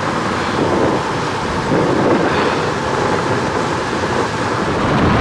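Steady rushing rumble of a motor boat underway, engine noise mixed with wind buffeting the microphone, swelling slightly a couple of times.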